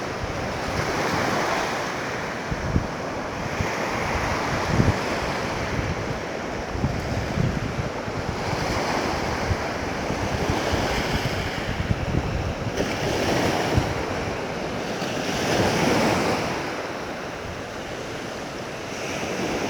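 Sea waves breaking and washing up a beach, the surf swelling and falling back every few seconds. Wind buffets the microphone with short low thumps.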